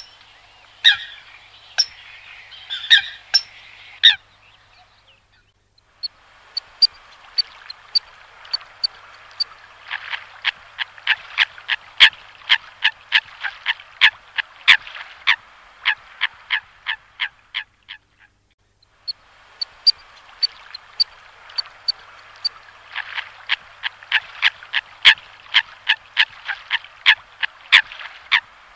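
Coots calling: a flock giving runs of short, sharp calls at about two or three a second, broken by brief pauses about five seconds and eighteen seconds in.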